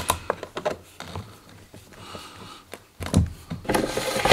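Light metallic clicks and rattles of a Stihl chainsaw's chain and bar being handled while the chain is tensioned with a screwdriver. A few separate clicks come first, then a denser run of clicking and rattling near the end.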